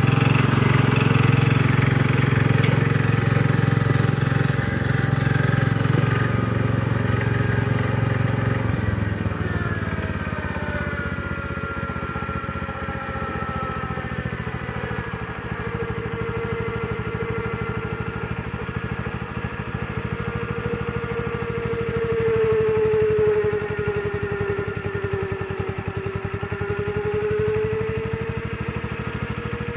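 1974 John Deere 140 garden tractor's single-cylinder engine running under load as it pushes dirt with a front blade. It is loudest for the first several seconds, then steadier, with a whine that slides down and back up in pitch.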